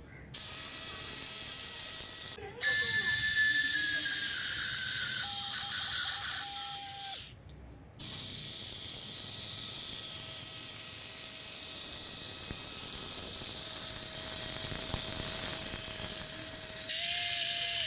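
Small electric toy motor whirring steadily with a faint whine, in clips cut together with brief silent gaps about two and a half and seven and a half seconds in.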